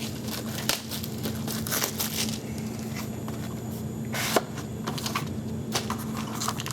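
Card packaging being handled and opened: crinkling and tearing of wrapper and cardboard, with scattered clicks and one sharper snap a little over four seconds in, over a steady low hum.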